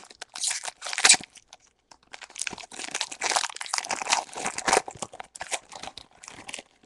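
Foil wrapper of a Pokémon trading card booster pack crinkling and tearing as it is ripped open by hand. There is a sharp burst about a second in, then a longer stretch of crinkling that thins out near the end.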